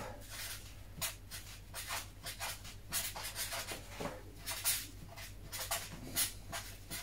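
Felt-tip marker writing on paper in a quick run of short, irregular strokes, over a low steady hum.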